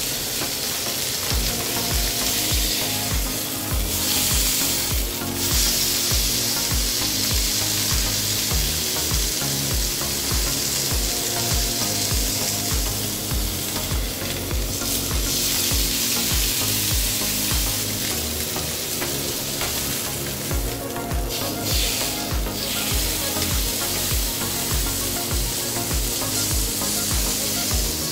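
Tied pork roast sizzling as it sears in a hot grill pan, over background music with a steady beat.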